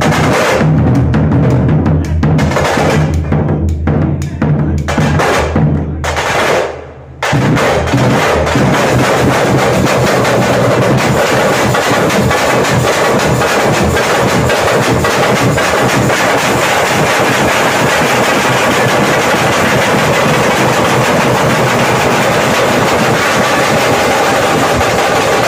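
A band of stick-played snare drums and a large bass drum beating a festival rhythm, the bass drum strong at first. The drumming drops out briefly about seven seconds in, then comes back as fast, continuous snare drumming with a roll-like texture.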